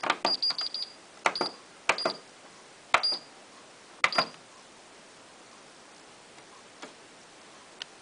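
Hotpoint Ultima WT960 washing machine control panel being operated: each press gives a click and a short high beep. There is a quick run of about five beeps near the start, then single beeps roughly once a second until about four seconds in.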